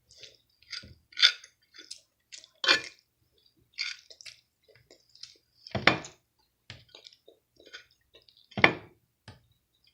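A person chewing food with the mouth open close to the microphone: irregular wet smacks and clicks, with two louder ones about six and nine seconds in.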